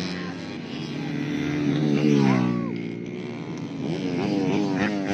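A tuned 130cc four-stroke underbone race motorcycle passing at speed. Its engine note is loudest about two seconds in and drops in pitch as it goes by.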